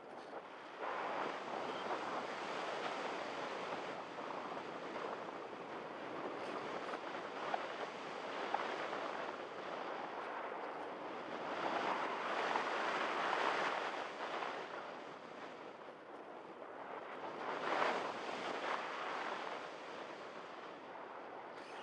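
Airflow rushing over the microphone of an onboard camera on a Multiplex EasyStar RC motor glider in flight, a steady noise that swells louder in the middle and again near the end.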